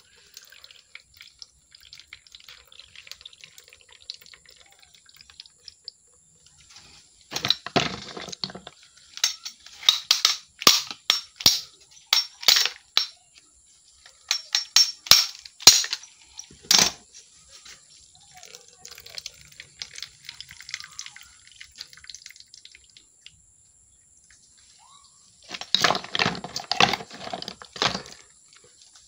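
A knife knocking and cracking open the shells of giant land snails: clusters of sharp cracks and knocks, several in quick succession, with a quiet stretch between them and another run near the end.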